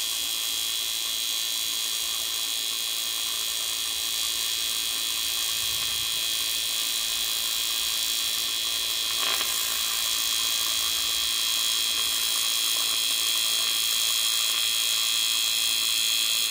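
TIG welding arc on aluminium burning steadily: a continuous hiss with a high-pitched whine.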